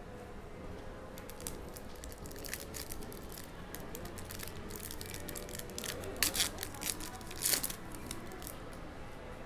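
Foil wrapper of a trading card pack being torn open and crinkled by hand: a run of sharp crackles and rips, loudest about six and again about seven and a half seconds in.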